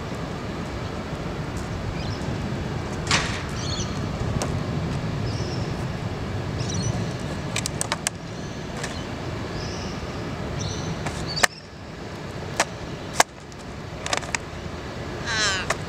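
Sharp, scattered taps of an Australian raven's beak pecking at a clear plastic lunch box, over a steady hum of city traffic that drops away about two thirds of the way through. A few short high bird chirps, and a trilling call near the end.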